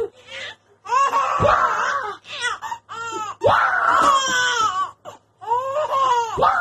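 Toddler's voice: several long, high-pitched cries and squeals, the pitch sliding up and down, with short breaks between them.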